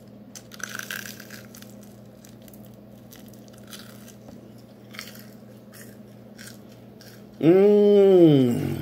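A crunchy Cinnamon Toast Crunch cookie being bitten into and chewed: a run of crisp crunching crackles over a faint steady hum. Near the end comes a loud, drawn-out vocal sound from the eater that rises and then falls in pitch.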